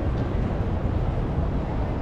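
Steady city street ambience, mostly an even low rumble with a fainter hiss above it.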